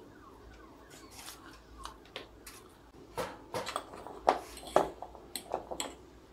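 Close-miked eating sounds: chewing crispy fried chicken, and a metal fork clicking and scraping on a plate while picking up noodles. The sharpest clicks come in a quick run through the second half.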